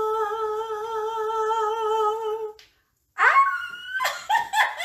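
A woman's voice holds one long sung note with a slight vibrato, which breaks off about two and a half seconds in. After a brief pause come short, high, gliding cries and a few clicks.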